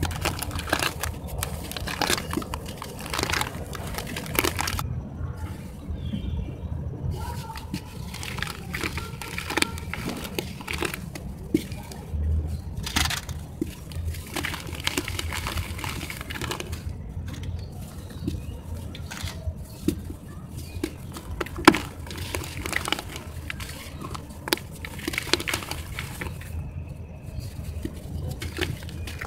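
Wet hands crumbling and squeezing lumps of dry sand-and-cement mix into a basin of water: dense, irregular crunching and crackling with wet squelches, over a steady low hum.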